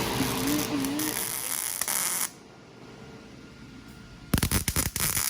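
Welding arc struck about four seconds in, crackling and buzzing in rapid, irregular pops as the weld bead is laid; before it, a steady hiss and then a quiet pause.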